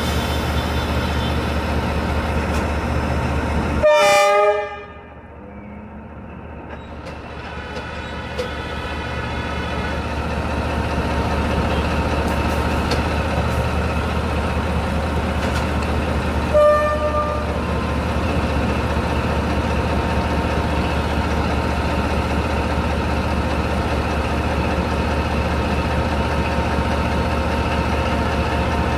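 Diesel locomotive running steadily during shunting, with two short horn toots: one about four seconds in and another about seventeen seconds in. After the first toot the engine sound drops away and then slowly grows louder again.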